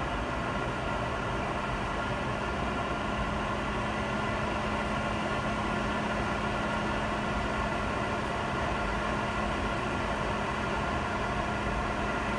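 Steady cabin noise inside a Boeing 717-200 airliner rolling on the ground: the even hum of its rear-mounted turbofan engines and air noise, with a few faint held whining tones, edging slightly louder as it goes.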